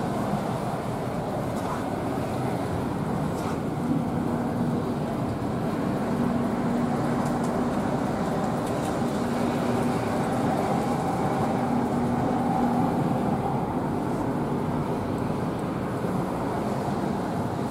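O gauge three-rail toy trains running on a large layout: a steady rumble of wheels on the track, with a faint low hum that comes and goes.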